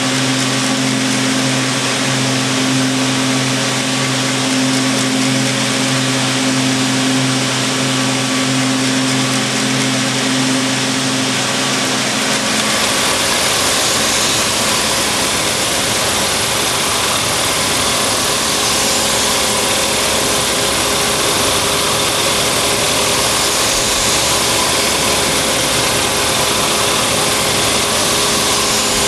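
Circular knitting machines running in a knitwear mill: a steady mechanical hum with a low drone. About twelve seconds in the drone stops and the sound changes to a broader, even whirring.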